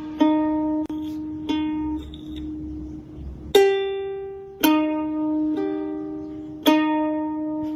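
Music: slow single plucked notes on a string instrument, about one a second, each left to ring out, with one higher note about three and a half seconds in.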